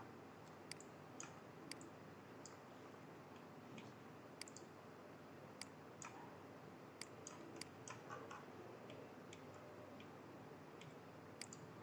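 Faint, irregular clicks of a computer mouse and keyboard, about twenty scattered singly and in quick pairs, over a quiet room.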